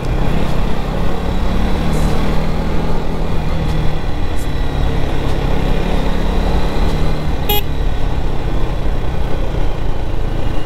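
KTM Duke 250's single-cylinder engine running steadily while riding, under steady wind rush on the microphone.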